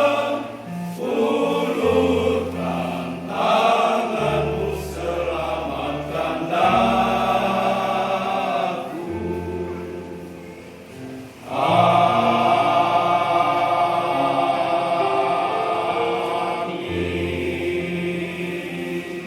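Church choir singing a hymn in sustained, held chords. It drops to a softer passage a little before halfway, then comes back in loudly.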